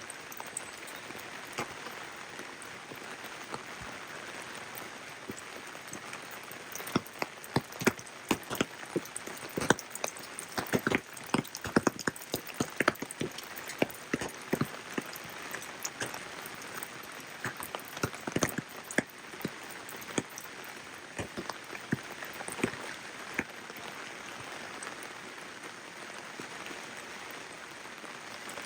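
Steady rain with a constant hiss, and many irregular, sharp drops pattering on a surface close by, thickest through the middle stretch and thinning out toward the end.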